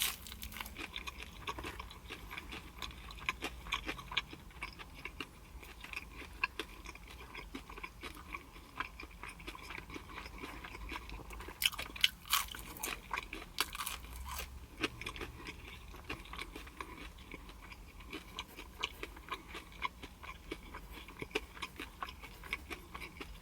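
A person chewing and biting pizza close to the microphone: wet chewing with many small crunchy clicks, louder bites about halfway through.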